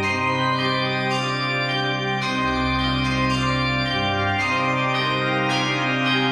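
Organ music playing held chords over a bass line that moves to a new note every second or two.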